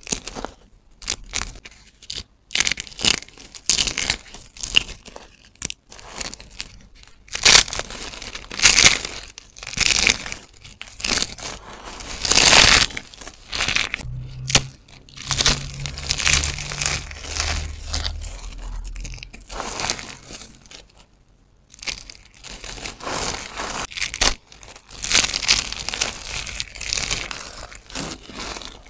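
Brittle soap chips and thin soap plates crushed and crumbled between bare hands: irregular crisp crunching and crackling in bursts, with short pauses between squeezes.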